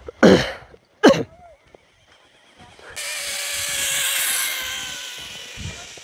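A person coughs twice, loud and close, about a quarter second and a second in. From about three seconds in a steady hiss with a faint hum rises and slowly fades.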